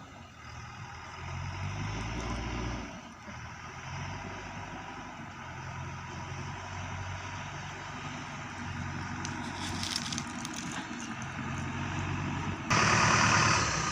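JCB 3DX backhoe loader's diesel engine running under work, its revs rising and falling as the machine works. Near the end a louder, harsher noise comes in suddenly over the engine.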